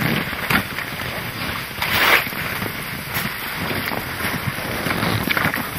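Wind on the microphone over ice, with short scraping and crunching rushes as long wooden poles are worked down through slushy ice holes, a few times over.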